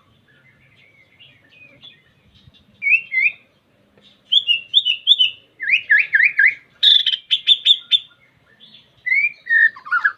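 White-rumped shama (murai batu) singing to call out a rival: soft twittering, then from about three seconds in loud whistled phrases of quick up-and-down notes, with a burst of rapid sharp notes about seven seconds in.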